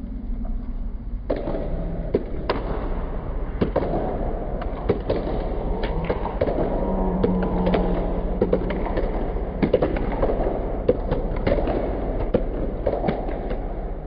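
Kendo bout: irregular sharp cracks and knocks from bamboo shinai strikes and stamping feet on a wooden floor, with a drawn-out shout about halfway through.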